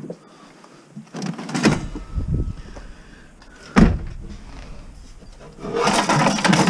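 Scrap items being handled: a cluster of knocks and thuds about a second in, a single loud bang near the four-second mark, then about a second of rough scraping noise near the end.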